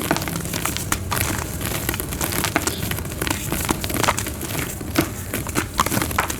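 Soft white gym chalk being crushed and crumbled by hand into powder, a dense run of irregular crunches and crackles.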